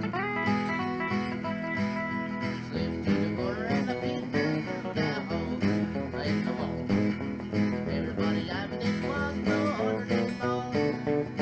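Rockabilly instrumental break: a lead guitar plays bent, sliding notes over a steady bass and rhythm backing.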